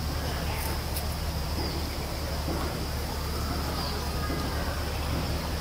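Forest ambience: a steady high insect drone over a constant low rumble, with a few faint short bird chirps.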